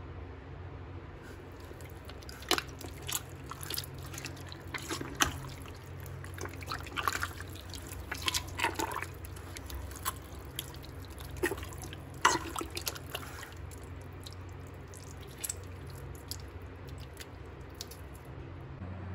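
A hand squeezing and stirring wet clay slurry in a plastic bucket: irregular wet squelches and slops, thicker in the first half and sparser later, over a steady low hum.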